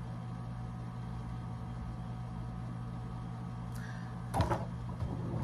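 Steady low hum of a running fan motor. A few short plastic clicks and rustles about four seconds in, as a comb is handled.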